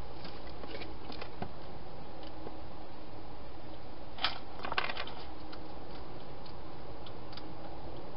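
A wild hedgehog moving about inside a plastic feeding box: a few light clicks and scratches, with a sharper cluster of clicks about four to five seconds in, over a steady background hiss.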